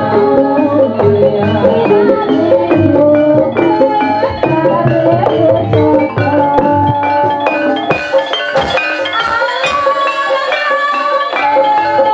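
Gamelan music accompanying an ebeg dance: tuned metal mallet instruments play a steady interlocking melody of struck ringing notes over hand drums. About eight seconds in, the low drum part thins out for a couple of seconds and then comes back.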